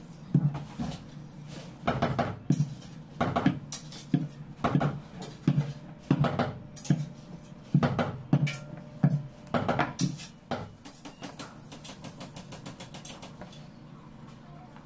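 Plastic rolling pin rolling out fondant on a granite countertop: a knock and short rumble with each stroke, about one or two a second, stopping about ten seconds in, then only fainter handling sounds.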